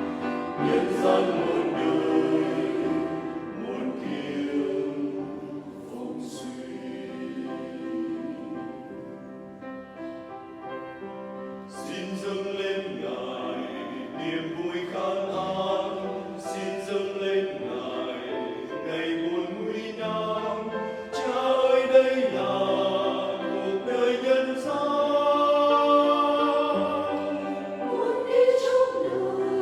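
Church choir singing a Vietnamese hymn in harmony. The singing softens for a few seconds in the middle, then swells again.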